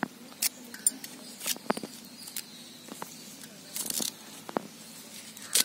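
Drumstick (moringa) leaves being stripped from their stalks by hand: scattered short rustles and clicks of leaves and thin stems, with a longer rustle about four seconds in.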